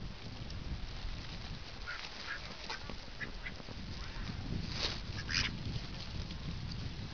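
A flock of domestic ducks quacking now and then in scattered short calls, the two loudest about five seconds in, over a steady low rumble.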